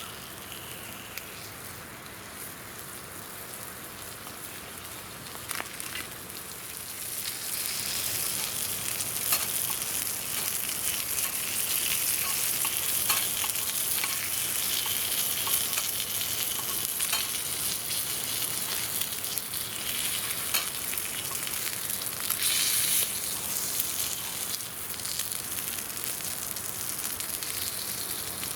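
Meat sizzling on a grill over a campfire, a steady hiss that grows louder about seven seconds in, with scattered pops and crackles.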